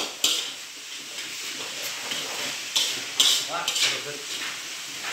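Fried rice sizzling in a wok over a gas flame as it is stir-fried, with a metal utensil scraping and knocking against the wok several times, the loudest knocks about three seconds in.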